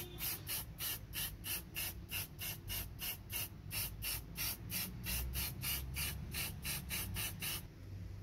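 Aerosol spray-paint can sprayed in quick short bursts, about four hissing puffs a second, stopping near the end.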